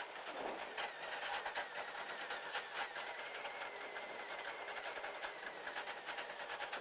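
Ford Fiesta S2000 rally car's naturally aspirated four-cylinder engine idling, heard from inside the stripped, roll-caged cabin, with a faint steady high tone and rapid irregular ticking.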